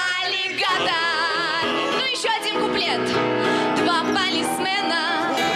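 A woman singing with a wavering vibrato over instrumental accompaniment.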